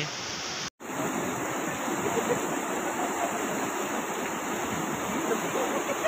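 Steady rush of a mountain river tumbling over boulders, cut by a brief gap of silence just under a second in.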